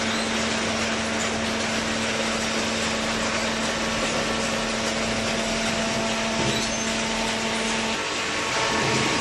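Hydraulic baler machine running: a steady mechanical hum over a dense hiss, its low hum tone dropping out about eight seconds in.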